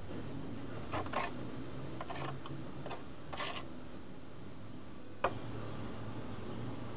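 Hand scraper scraping caked grass off the underside of a lawnmower deck in short strokes, a pair about a second in and more around two and three seconds in. A single sharp knock follows a little past five seconds.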